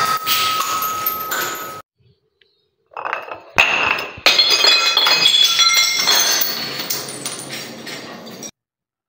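Glass breaking on marble stairs. First comes the tinkle and ring of shards settling, cut off short. After a gap, a glass bottle full of water beads hits the steps twice and shatters, and clinking shards scatter and ring for several seconds, fading away.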